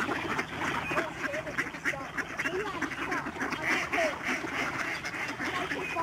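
A large flock of mallards quacking together, many short overlapping calls forming a continuous chorus.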